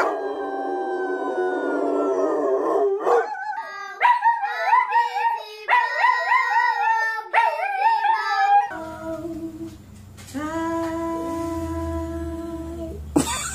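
Dogs howling in three quick clips: a boxer-type dog's long howl that sinks in pitch, then a small shaggy dog howling along with children, several wavering voices at once, then a large white dog giving long, steady howls.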